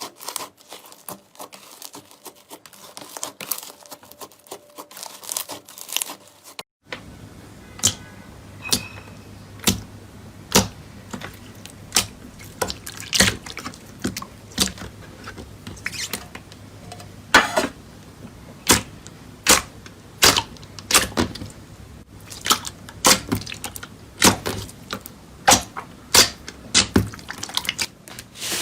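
Slime being worked by hand: a run of sharp sticky pops and clicks, about one or two a second. The clip changes about seven seconds in.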